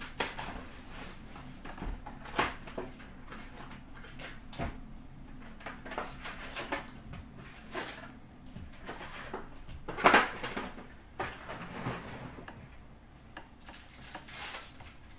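Hands handling a box of hockey card packs: cardboard and pack wrappers rustling and clicking, with the loudest rip about two-thirds of the way through as a pack is torn open.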